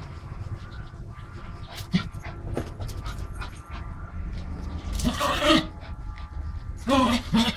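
Pomeranian panting, with two short whimpering yips about five and seven seconds in.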